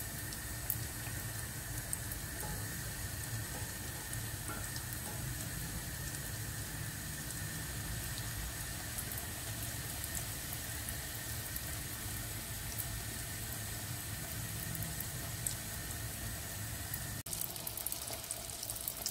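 Pişi dough rounds deep-frying in hot oil in an enamel pot: a steady sizzle scattered with small crackles and pops.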